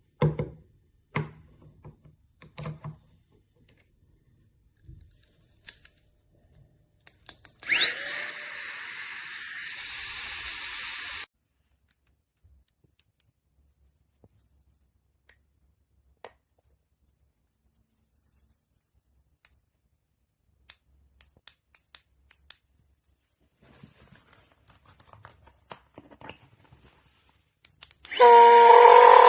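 Flextail Tiny Pump 2 mini electric air pump switched on: its small fan motor spins up with a rising whine to a steady high tone, runs for about three seconds and cuts off abruptly. Clicks and taps of the pump and its nozzles being handled, then the pump starts again near the end, louder, with a steady whine.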